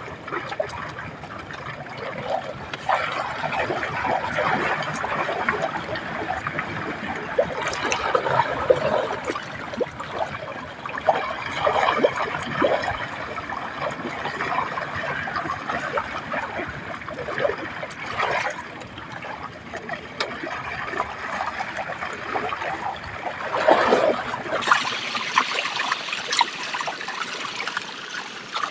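Water trickling and splashing in small irregular splashes. The sound changes abruptly about 25 seconds in.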